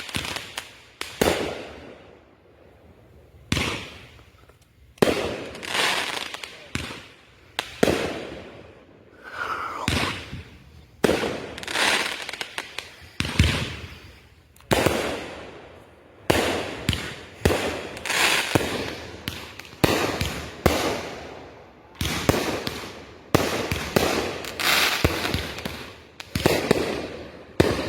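Consumer aerial fireworks going off in steady succession: a sharp bang every second or two, each one trailing off before the next.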